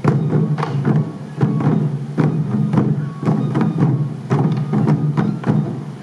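Sansa taiko drums, waist-slung and beaten by a group of dancers, played together in a steady rhythm of sharp strokes.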